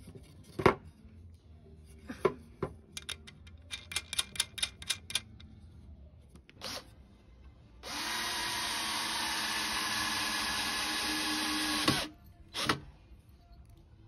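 Cordless drill driving a screw into a pine timber frame, running steadily for about four seconds in the second half and stopping abruptly, with a short burst shortly before and after. Before it come scattered sharp metallic clicks and taps from handling a bolt and wing nut, including a quick run of clicks.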